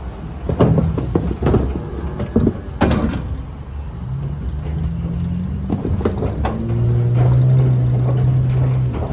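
Cattle in a metal livestock trailer: knocks and clanks from the trailer, then low moos in the second half, the last one long and held.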